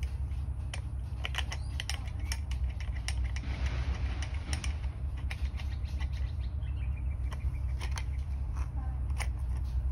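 Scattered sharp clicks and light metallic rattles from bicycle parts being handled, over a steady low rumble.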